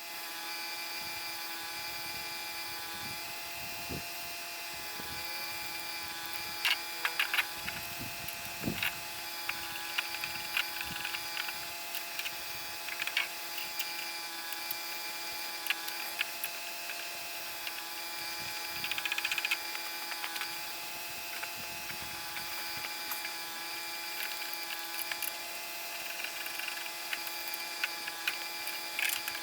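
Hand tools working metal bolts on a mower deck: scattered light clicks and taps of a wrench and bolts, with a brief run of rapid ticking about two-thirds of the way through. A steady hum runs beneath.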